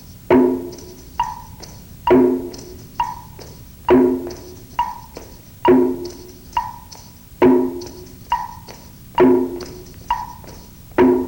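Percussion accompaniment beating time for an exercise routine. A strong, ringing stroke falls about every 1.8 s, with a lighter, higher knock halfway between, over a faint high rattle.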